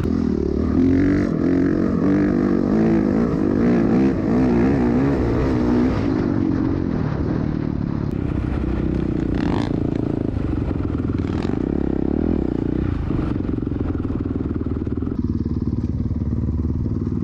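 Dirt bike engine being ridden hard, its revs rising and falling over and over for the first six seconds, then holding steadier, with wind rumbling across the microphone.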